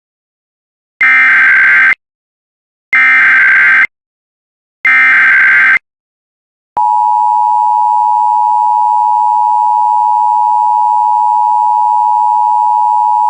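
Emergency Alert System SAME header: three bursts of warbling digital data tones, each about a second long and about two seconds apart. The steady two-tone EAS attention signal starts about seven seconds in and announces the spoken alert message.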